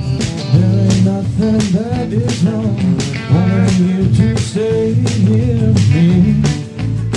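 Bluesy band music led by guitar, with pitches bending up and down over a steady drum beat.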